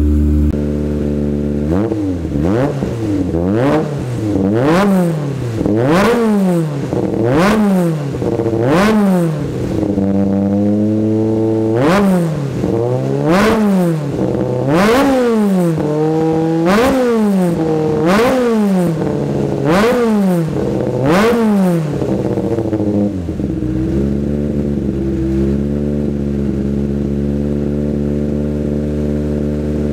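Toyota 4A-GE 16-valve 1600cc four-cylinder race engine idling, then blipped in about a dozen quick free revs roughly every one and a half seconds, each climbing and dropping sharply. It settles back to a steady idle near the end.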